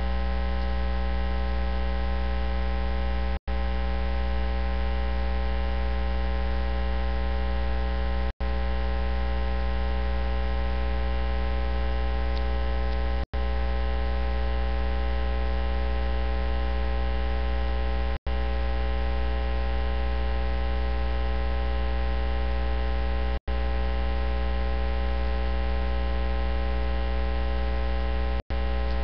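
Steady electrical mains hum, a low buzz with many overtones, filling the recording in place of any speech. It cuts out completely for a split second about every five seconds.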